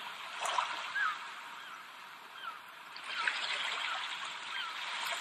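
Trickling water with several short bird chirps over it.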